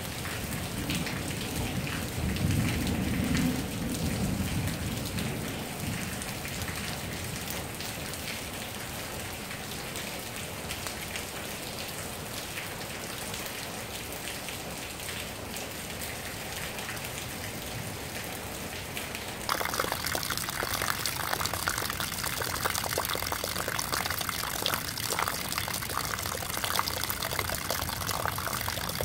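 Steady heavy rain falling, with a low rumble that swells and fades over the first five seconds or so. About twenty seconds in it changes abruptly to closer, louder splashing of rain and streams of runoff falling into a shallow puddle.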